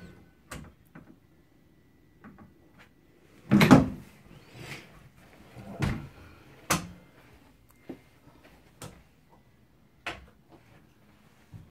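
Wooden knocks and thumps from a child's firetruck-style bed being handled, like drawers or compartment doors opening and shutting: one heavy thump about four seconds in, then several lighter, sharper knocks spaced about a second apart.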